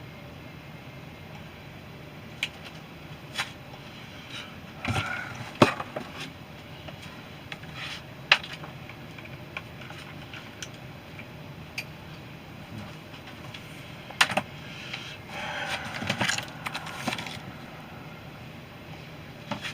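Irregular clicks, knocks and small rattles of a microphone stand and its shield being handled and fitted together, with clusters of louder knocks about five, eight, fourteen and sixteen seconds in.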